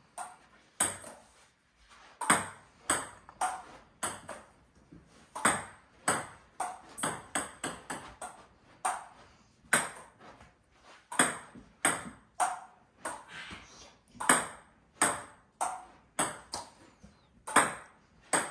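Table tennis chopping rally: the ball knocks off the Stiga paddle and the opponent's paddle and bounces on the table, a run of sharp clicks about two a second, unevenly spaced.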